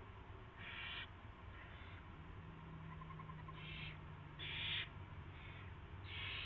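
Barn owl nestlings giving rasping, hissing food-begging calls, about six short bursts, the loudest a little under five seconds in.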